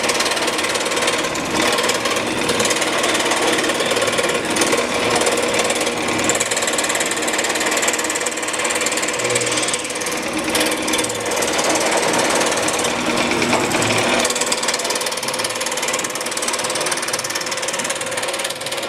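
Excalibur scroll saw running, its thin blade stroking up and down rapidly as it cuts through a board held down on the table: a steady, fast mechanical rattle with a constant hum underneath.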